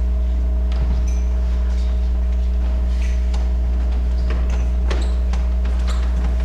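Steady low electrical mains hum, with a few light clicks and knocks scattered through it.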